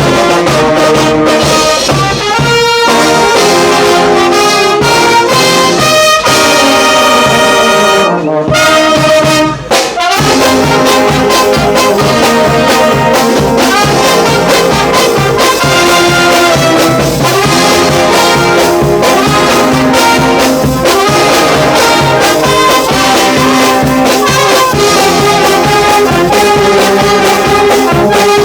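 A brass band playing loudly, with trumpets and trombones in full harmony. About six seconds in, the parts slide down together in a falling run, then break off briefly twice before the full band comes back in.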